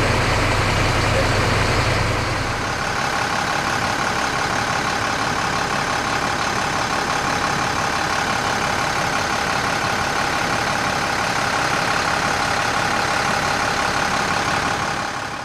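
Fire engine's engine and road noise heard from inside the cab while it drives: a steady drone. The deep low hum drops away about two and a half seconds in.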